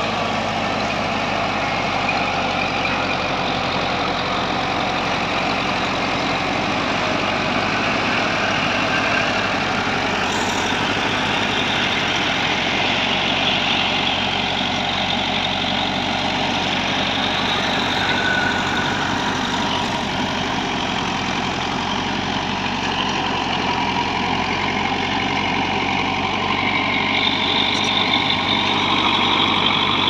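BEML D50 crawler bulldozer's diesel engine running steadily while the machine pushes soil with its blade.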